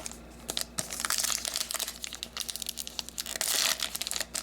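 Foil trading-card pack wrapper crinkling and being torn open by hand, with a louder crackle about three and a half seconds in.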